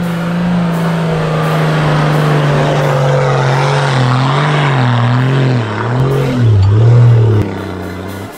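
Toyota LandCruiser 80 Series engine working hard under load as it tries to climb a soft sand dune. The revs hold steady, then sag and surge up and down from about halfway as the vehicle bogs down and loses traction, and they drop away sharply near the end as the climb fails.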